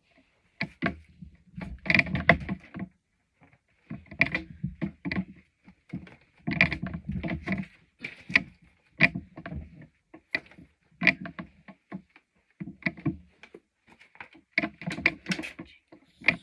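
Irregular knocks, clunks and brief rustles of books being handled and moved about.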